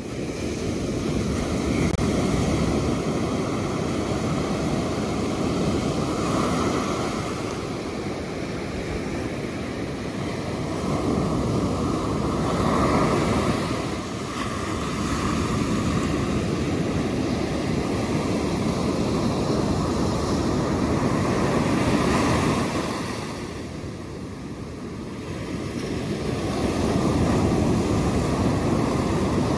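Ocean surf breaking and washing up a sandy beach, swelling and easing as each wave comes in, with a brief lull about three-quarters of the way through.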